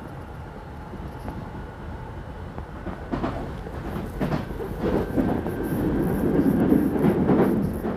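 Northern line 1995-stock Underground train running, heard from inside the carriage: a steady rumble from the wheels and running gear. From about three seconds in, clicks and knocks of the wheels over the rail joints break in, growing louder toward the end.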